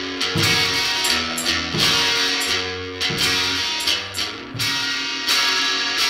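Noise-rock band music: electric guitar chords strummed and left ringing, with a few drum hits.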